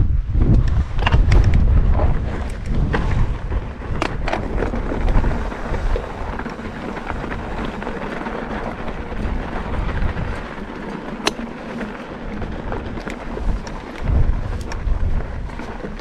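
Mountain bike rolling over a dry dirt and gravel trail, its tyres crunching and its parts rattling in sharp clicks, under gusts of wind buffeting the camera microphone in a low rumble. The wind rumble is heaviest at first, eases in the middle and picks up again near the end.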